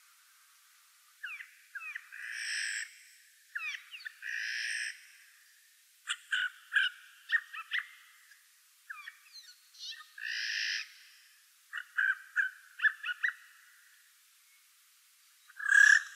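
Eurasian jays calling: three harsh, rasping screeches, each under a second long, among quick sharp clicking call notes, with a loud short call near the end.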